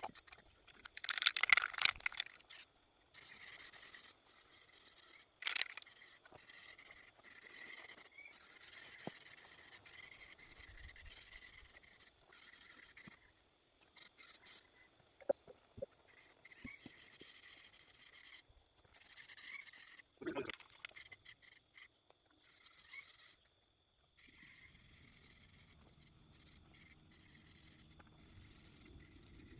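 Sealer being sprayed, hissing in repeated bursts of one to a few seconds with short breaks between them. A louder rustle of handling comes about a second in.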